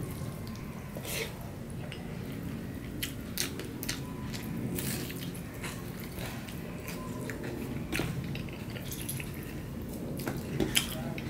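Eating by hand from a steel plate: fingers mixing rice on the plate, with chewing and lip smacks. Scattered short clicks and smacks over a steady low background noise.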